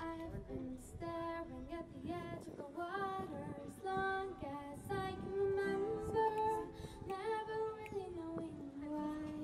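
A girl singing solo into a handheld microphone, with long held notes.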